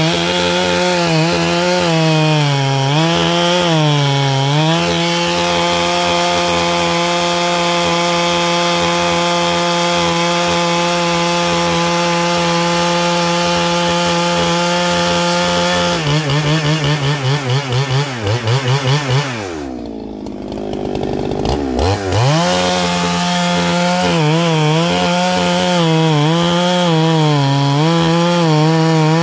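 Neo-Tec two-stroke chainsaw, a Husqvarna 395 clone, running at full throttle while cutting through a log, its pitch dipping again and again as the chain loads up in the wood. Past the middle the revs flutter for a few seconds, then fall away briefly and wind back up to full speed as the cut goes on.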